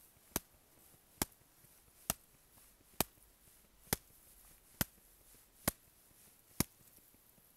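Evenly spaced taps on a shovel blade lying on top of an isolated snow column, eight sharp taps about one a second: the loading taps of a snowpack compression test.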